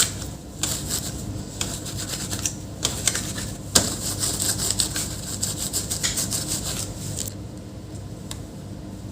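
Rubbing and scratching strokes of cleaning work on a laptop's processor, repeated many times and easing off about seven seconds in.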